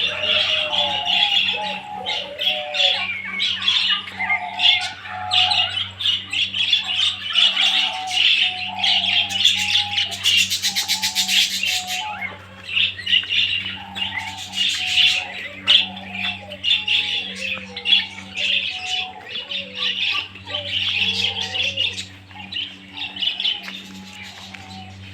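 Many captive birds calling together: a dense chorus of high chirps mixed with lower squawks, with a fast rattling call about ten seconds in that lasts a couple of seconds. A steady low hum runs underneath.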